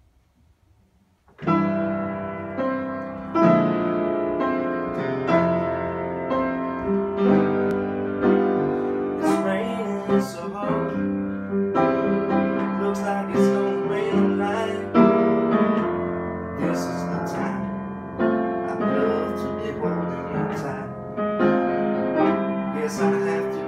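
Piano playing chords and melody, starting abruptly about a second in after near silence.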